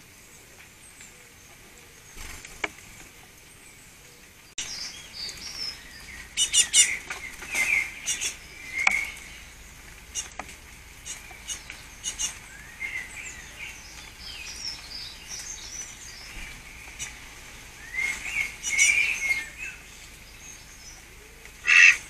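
Small songbirds chirping and twittering in short bursts, with a few sharp clicks among them. The chirping comes in clusters through the middle and ends with its loudest burst near the end.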